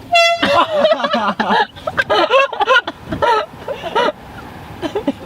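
An air horn gives one short, steady blast at the start. It is followed by several voices laughing and yelling for a few seconds.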